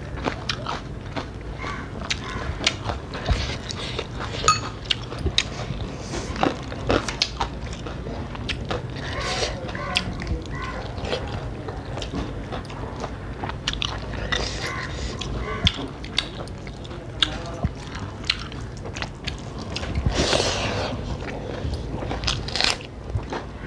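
Close-miked eating sounds: chewing and lip smacking, with many small clicks of fingers working rice and curry on china plates.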